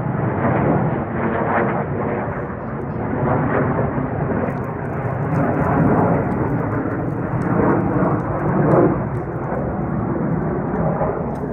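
Fighter jets passing overhead: a loud, continuous rumbling roar that swells and eases without a break.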